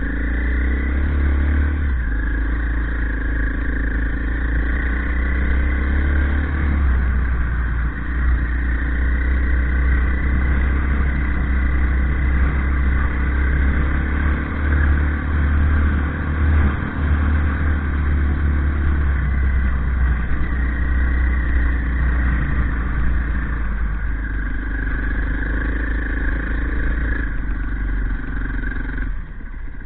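Engine of an off-road vehicle running under way, its pitch rising and falling as the throttle opens and closes, over a heavy low rumble.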